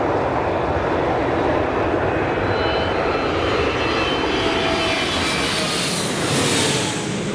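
Boeing 767-300ER's twin GE CF6-80C2 turbofans running at taxi power close by: a steady jet rush with a faint whine of the fans on top. About six seconds in a high hiss grows brighter, then falls away.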